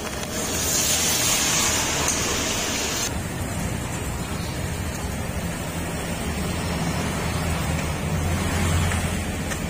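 Hot oil sizzling hard as chicken and kremes batter deep-fry in a wok, the hiss loudest for the first few seconds, over a steady low rumble.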